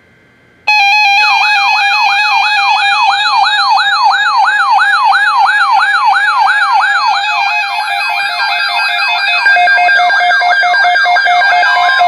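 Several NOAA weather alert radios sounding their alarms together for a severe thunderstorm watch. The sound starts abruptly about a second in with a short burst of stepped data tones, then becomes a rapid warbling siren tone, about three sweeps a second, over steady alert tones. Another steady tone joins near the end.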